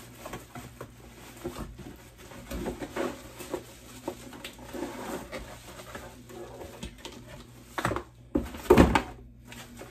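Handling noise from unpacking: plastic bubble wrap crinkling and a cardboard box rustling as a small fan is pulled out, with a couple of louder cardboard thumps near the end.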